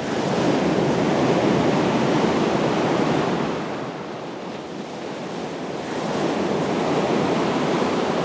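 Gulf of Mexico surf breaking and washing up the beach, swelling and fading twice a few seconds apart.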